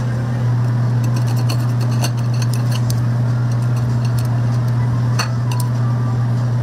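A steady low hum, with light clinks of chopsticks against ceramic dishes and plates starting about a second in.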